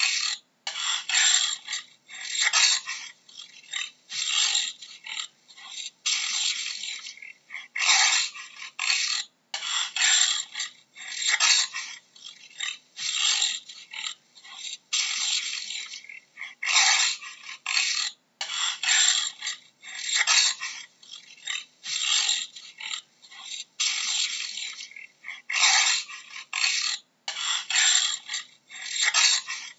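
A jaguar's hoarse, rasping grunts in a long, steady series, about one or two a second with short gaps between them. They are heard mostly as a breathy, scraping rasp, like the animal's 'sawing' call.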